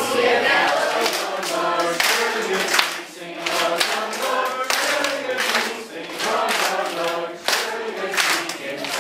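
A roomful of children singing together in unison, with several sharp hand claps at uneven intervals.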